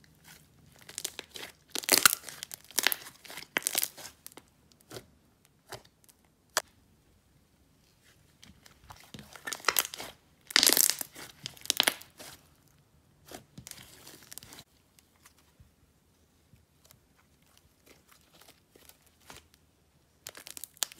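Stretchy jelly slime being stretched and squeezed by hand, crackling and popping in irregular bursts. The bursts are loudest about two seconds in and again around ten to twelve seconds in, then thin to scattered small pops near the end.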